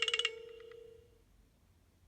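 Short metallic chime played through a Nokia 112's loudspeaker: a quick flurry of bright strikes, then a ringing tone that fades out over about a second.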